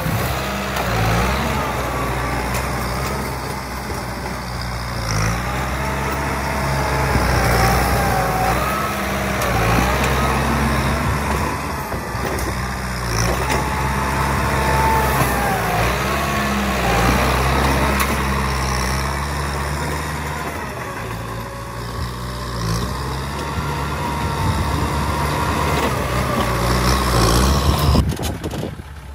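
Kubota farm tractor's diesel engine running under load as its front dozer blade pushes soil and rocks, with a wavering high whine rising and falling over the engine.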